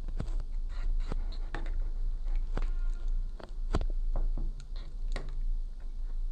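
Spoon stirring thickening borax-and-glue slime in a bowl: irregular soft taps and clicks of the spoon against the bowl, one ringing briefly about three seconds in.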